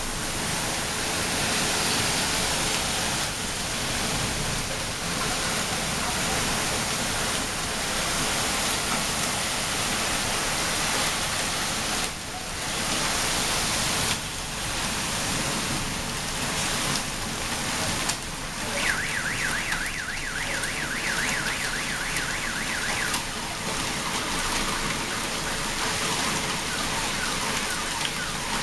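Heavy rain mixed with hail falling on a parking lot and parked cars, a dense steady hiss. About two-thirds of the way through, a car alarm sounds a fast warbling tone for about four seconds.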